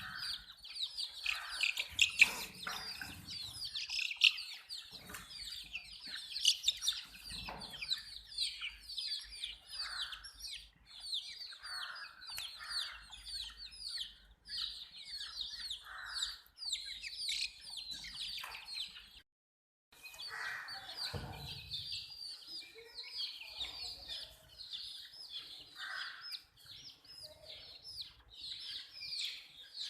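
A group of baby chicks peeping continuously: many overlapping short, high, downward-sliding peeps, with a few soft thumps mixed in. The sound cuts out completely for about half a second a little past two-thirds of the way through.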